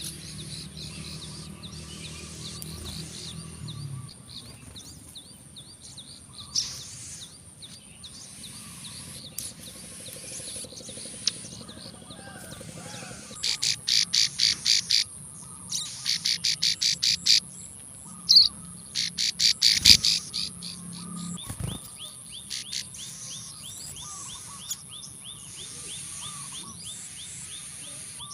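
Plain prinia calling: several quick trains of sharp, rapidly repeated high notes, loudest in the middle of the stretch, with fainter chirping before and after.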